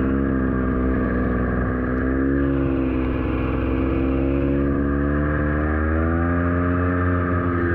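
Snowmobile engine running steadily under throttle, its pitch wavering up and down a little.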